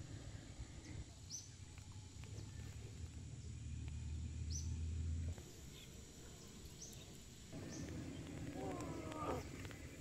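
Rural outdoor ambience: short high bird chirps every second or two over a low steady hum that cuts off about five seconds in. Near the end comes a drawn-out animal call with a wavering pitch.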